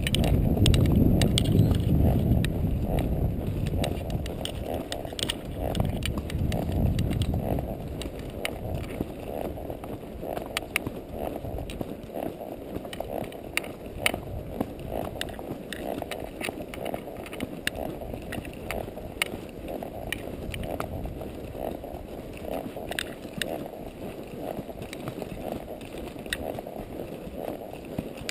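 Horse walking under a rider, with irregular hoof steps, over wind rumbling on the microphone that is heaviest for the first several seconds and then eases.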